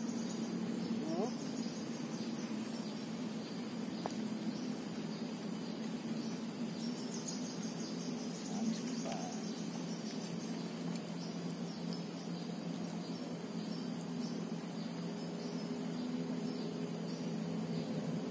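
Insects trilling in one steady, unbroken high-pitched note, with a lower steady hum underneath.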